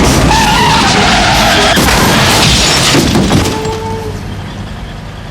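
Car crash: tyres skidding, then an impact about two seconds in with smashing glass, the noise dying away over the last two seconds.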